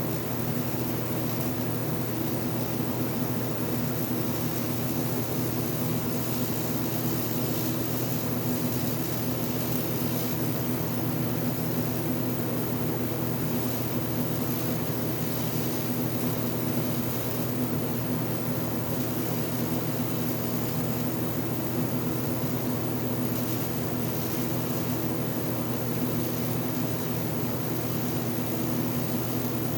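AC TIG welding arc on aluminium running steadily: an even buzzing hum with a hiss over it.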